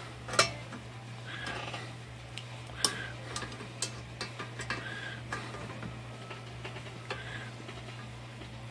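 Sharp metal clicks and taps of hand tools on the Royal 10 typewriter's steel carriage parts while the bent carriage end rail is worked back into shape, over a steady low hum. The clearest click comes about half a second in, another near three seconds.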